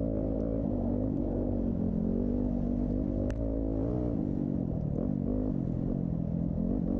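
Dirt bike engines running and revving, their pitch rising and falling, with a sharp click about three seconds in.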